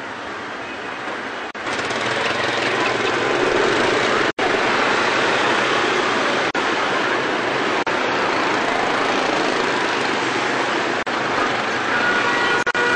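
Dense city traffic of many motorbikes and cars running together, a steady loud noise that grows louder about a second and a half in.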